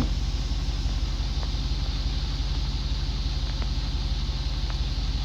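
Pickup truck engine running, heard from inside the cab as a steady low hum.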